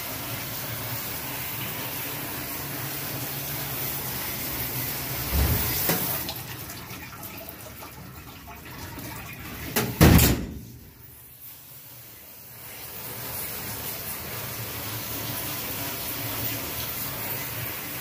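Hobart door-type commercial dishwasher running with a steady rush of water spray. There is a thump about five seconds in and a loud metallic clunk about ten seconds in. After the clunk the rush dies away for a couple of seconds, then returns.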